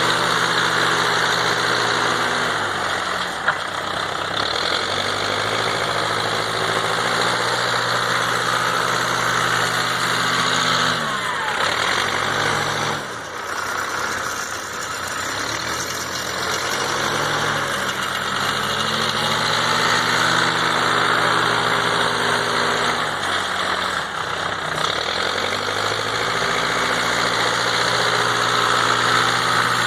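Backhoe tractor's engine running under load while pushing snow, its note sagging and climbing back several times as it works.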